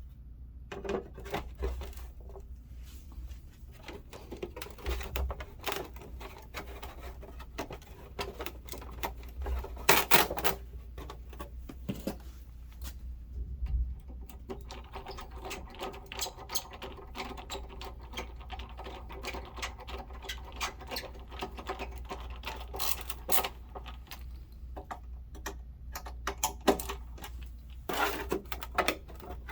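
Clicks, taps and knocks of plastic body panels and parts being handled and fitted back onto a mobility scooter, irregular and scattered, with a few louder knocks. A faint steady hum runs under the middle stretch.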